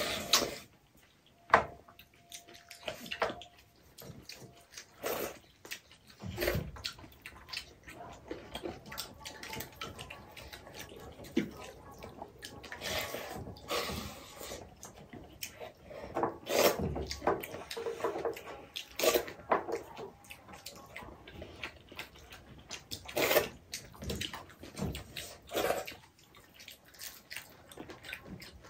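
Pakhala, watered rice, being eaten by hand: fingers scooping and splashing in the rice water in steel bowls, with wet eating sounds and scattered short clicks and taps on the steel.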